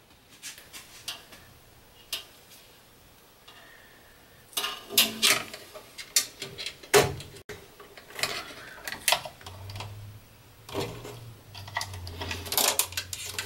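Handling sounds of electrical wiring work in a control panel: a wire being pulled and routed through plastic wire duct, with irregular small clicks, taps and rustles.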